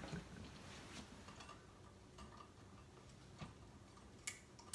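Near silence with a few faint ticks, then one sharp click near the end: a table lamp's switch being turned off.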